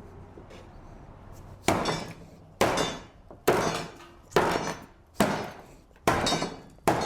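Hammer blows working a cut-out section of old tongue-and-groove hardwood flooring loose, seven sharp strikes with a short ring, about one a second, starting a little under two seconds in.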